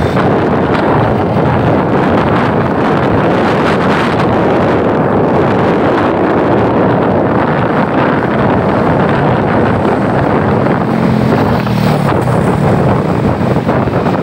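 Wind rushing over the microphone of a moving motorbike, steady and loud, with the engine and surrounding city traffic underneath. A low engine note comes up briefly near the end.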